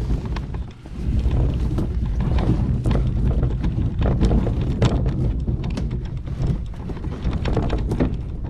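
Fishing kayak being dragged by hand up a grassy, brushy bank: a continuous scraping rumble of the hull over the ground, broken by many irregular knocks and bumps.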